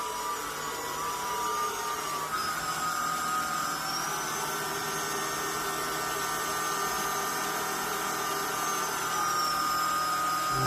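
Cordless vacuum cleaner running, its motor a steady high whine. The pitch steps up a couple of seconds in, climbs again a little later, and glides back down near the end.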